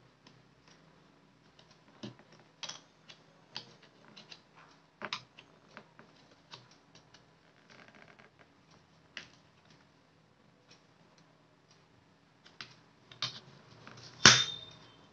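Sharp plastic clicks as fingers pry and press at an Amazon Kindle e-reader's plastic bezel and casing, a scattering of separate clicks with the loudest snap near the end.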